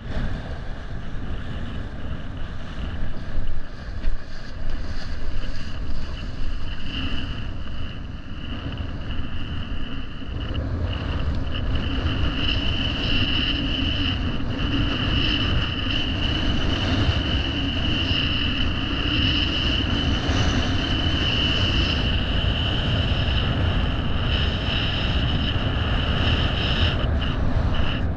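Wind buffeting the microphone and water rushing past a windfoil board under way, a dense rumble and hiss that grows stronger about ten seconds in. A steady high-pitched whine comes in after several seconds and holds.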